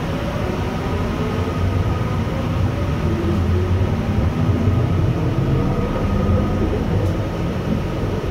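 A UTDC ICTS Mark I rapid-transit car heard from inside as it runs out of the station and picks up speed: a steady low rumble of wheels on rail with a faint steady whine from the linear induction motor drive.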